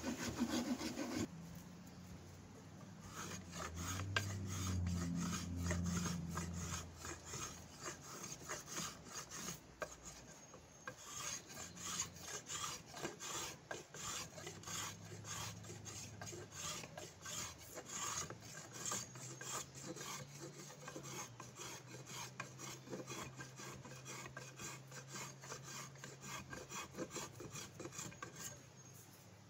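Drawknife shaving a hickory axe handle: a long run of quick, short scraping strokes as curls of wood peel off.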